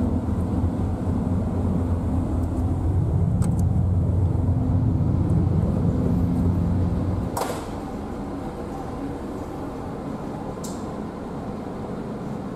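A loud, steady low engine drone that cuts off sharply about seven seconds in with a single knock, leaving a quieter steady hum.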